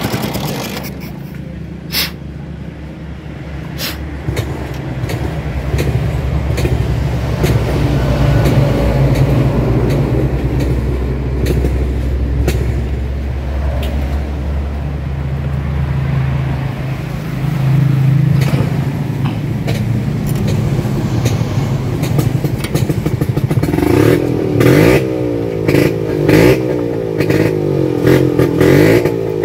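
Vespa scooter engines running at a steady idle, then revved in short, quickly repeated blips, about one a second, near the end.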